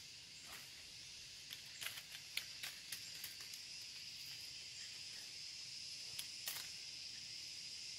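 A steady, high-pitched trilling of forest insects runs throughout. Scattered sharp clicks and rustles come from handling against the tree branch, bunched around the second and third seconds, with two more near the end.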